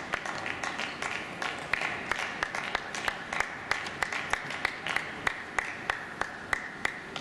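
Audience applauding after a point in a table tennis match, the clapping falling into a steady unison rhythm of about three claps a second.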